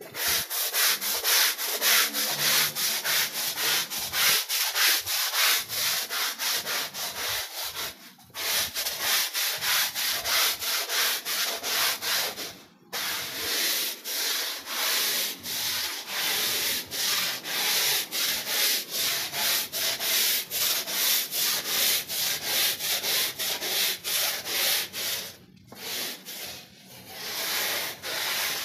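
Long-handled push brush scrubbing a wet, soapy rug with quick back-and-forth strokes, about two or three a second. The scrubbing stops briefly three times.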